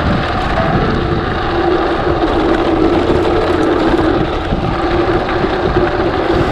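Strong wind buffeting the microphone: a loud, unbroken rumbling hiss, with a steady hum underneath.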